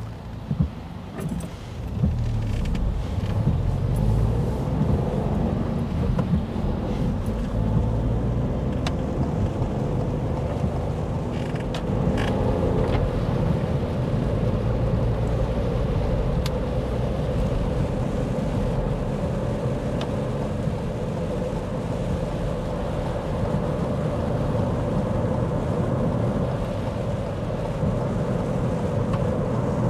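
Inside the cabin of a Ford car driving on a wet road in the rain: a steady rumble of engine and tyres that grows louder about two seconds in as the car pulls away, with a few faint clicks now and then.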